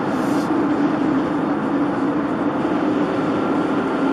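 Steady in-cabin road and engine noise of a car driving at about 70 km/h, recorded by a dashcam, with a constant low drone.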